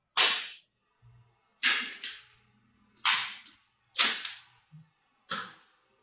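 Slabs of small magnetic balls snapping down onto magnetic-ball columns: five sharp clacks, roughly a second apart, each fading quickly.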